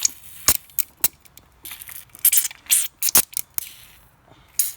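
Irregular metallic clicks and short scraping rasps as the VANOS camshaft gear on a BMW 323i is worked back and forth by hand to check whether it locks into place; the owner suspects the gear is faulty because it does not lock in reliably.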